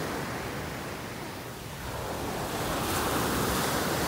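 Small waves breaking and washing up a sandy beach, a steady rush of surf that eases about a second and a half in and swells again.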